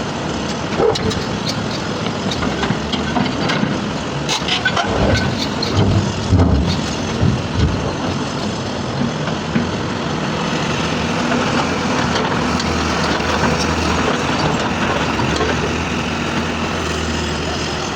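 Heavy diesel construction machinery running, with a cluster of sharp knocks and clanks about four to eight seconds in. The engine works harder and steadier from about ten seconds on.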